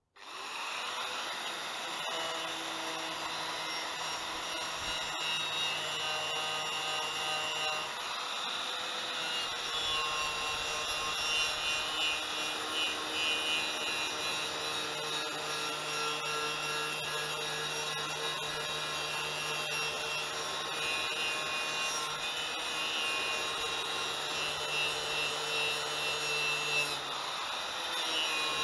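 Power tool running steadily with a continuous scraping, as a rotary wire brush scrubs rust off metal suspension parts. Its motor pitch shifts now and then with the load.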